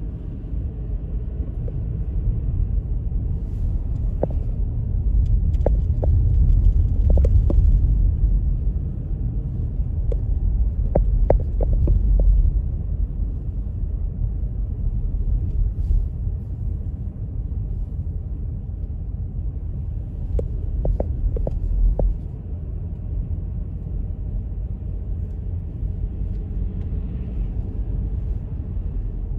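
Steady low rumble, swelling a little in places, with scattered light clicks.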